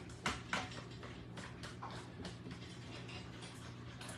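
A utensil stirring a thick mayonnaise and cream-of-chicken-soup mixture in a baking dish, clicking and scraping against the dish: two sharper clicks in the first half second, then lighter, irregular ticks. A faint steady low hum sits underneath.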